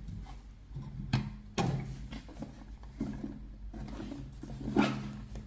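A cardboard album box being handled and opened: a few short taps and knocks with some scraping of the packaging, over a faint steady low hum.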